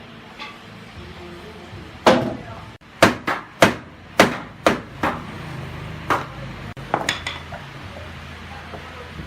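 Hammer striking wood in a dozen or so irregular blows. A faint knock comes early, then quick groups of loud strikes run from about two seconds in to about seven seconds in.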